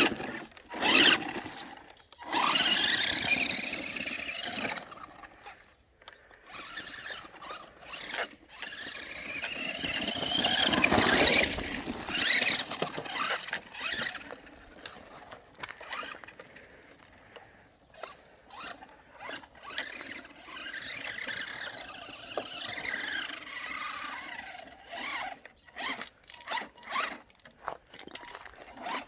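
Maverick Phantom XT radio-controlled car's electric motor and drivetrain whining, rising and falling in pitch as the throttle is opened and eased in repeated runs. The loudest runs come in the first few seconds and again about ten seconds in, with quieter, choppier bursts after that.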